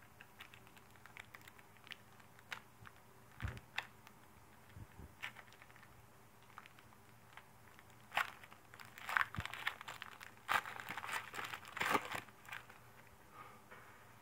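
Trading-card pack wrapper crinkling and tearing as it is opened by hand. Light scattered crackles come first, then a run of louder crinkles in the second half.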